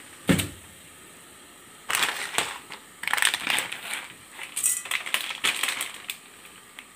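A plastic instant-noodle packet crinkling and rustling in several irregular bursts as it is handled. Near the start there is a single knock as a dry noodle block drops into a pot.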